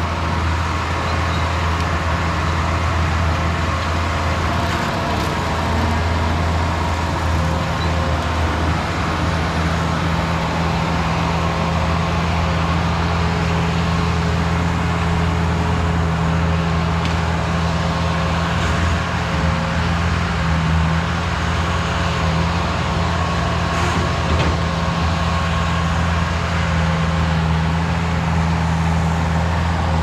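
Bobcat skid steer engine running steadily under load, a constant hum, while it drives a quick-attach rotary brush cutter through grass and undergrowth.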